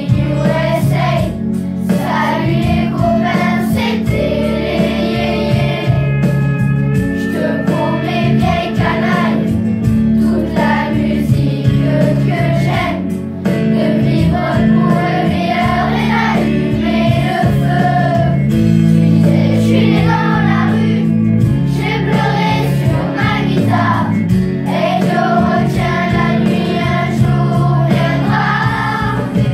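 A children's choir singing a song in French over instrumental accompaniment with a steady beat.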